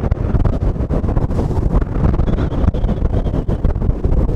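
Gale-force wind, around 40 knots, buffeting the microphone aboard a sailing yacht beating to windward: a loud, low, gusty rumble that never lets up.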